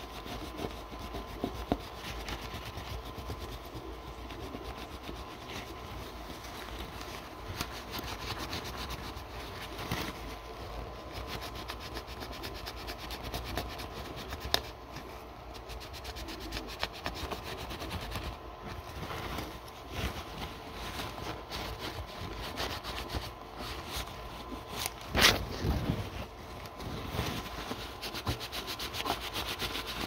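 A paper towel wetted with isopropyl alcohol is scrubbed back and forth over an ESC circuit board, a steady fast scratchy rubbing as thermal paste is wiped off. One louder knock comes a few seconds before the end.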